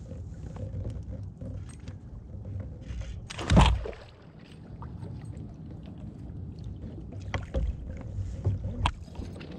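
A hooked fish splashing at the surface beside a kayak while being played on a rod, with one loud thump about three and a half seconds in and smaller splashes near the end.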